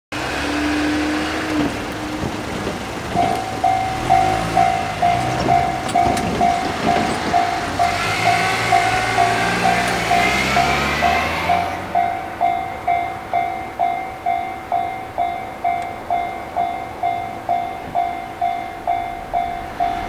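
Japanese railway level-crossing warning bell starts about three seconds in and rings an evenly repeated single tone about twice a second, the signal that a train is approaching. A car passes over the crossing before the bell starts, and another passes in the middle.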